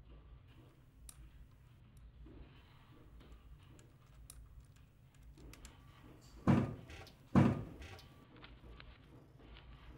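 Two heavy wooden thumps a little under a second apart, past the middle, after a stretch of faint small clicks and handling sounds.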